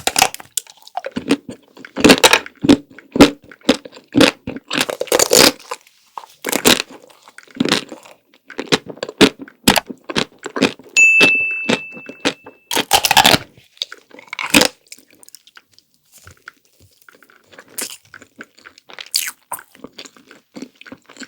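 Close-miked crunching bites and chewing of chocolate-coated ice cream, the hard chocolate shell cracking in a run of sharp crunches.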